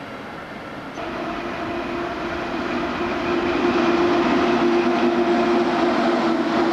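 A pair of NSWR 46 class electric locomotives hauling a freight train past at close range. From about a second in, the sound grows louder, with a steady electric hum over the rumble of the wheels on the rails.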